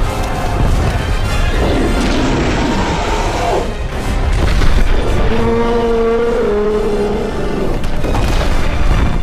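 Film soundtrack with deep booms over dramatic music, and a held, pitched sound from about five to seven seconds in.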